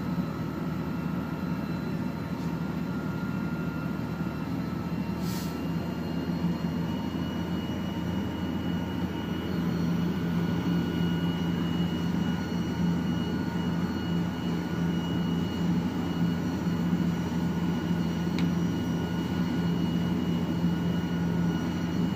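Fire engine's engine running its water pump, a steady drone with a low hum that grows louder about ten seconds in, as the hose line is flowing.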